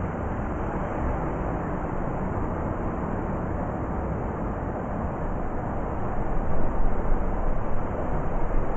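Blizzard wind blowing as a steady, low rushing noise, growing louder in gusts about two-thirds of the way through.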